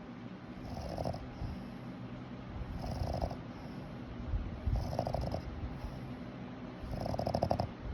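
Boston terrier snoring in its sleep: a fluttering snore about every two seconds, four in all, with a softer breath between each.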